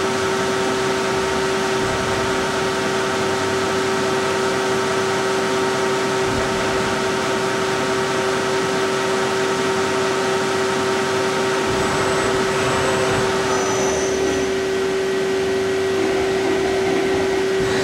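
2006 DMG Gildemeister NEF600 CNC lathe dry-running a program, its spindle running with a steady hum and a constant whine over it. Some of the higher tones drop away about 13 seconds in.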